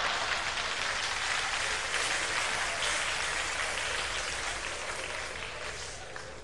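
Audience applauding after a punchline, the clapping dying away gradually.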